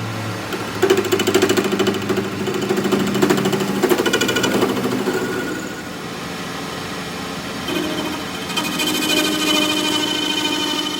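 A workshop power tool running in two spells, each with a fast, even rattle: one from about a second in to about five seconds, and another starting near the end.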